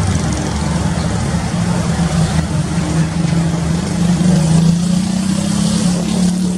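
Road roller's diesel engine running loud and steady, its drone rising a little in pitch partway through.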